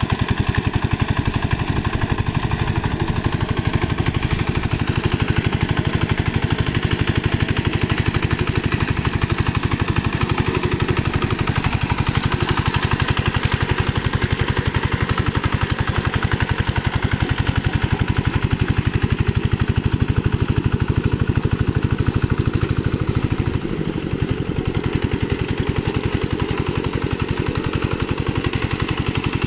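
Single-cylinder diesel engine of a two-wheel hand tractor running steadily as it pulls a rake through flooded paddy mud, with a short dip in level a little over three-quarters of the way through.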